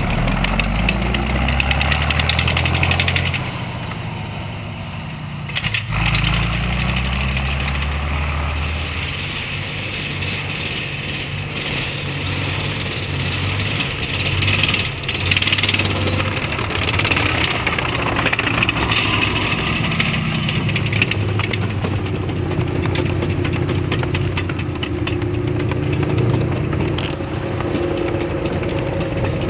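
T-34-85 tank's V-2 V12 diesel engine being revved. Its note climbs twice in the first nine seconds, dropping back after each, then keeps running with the revs rising and falling.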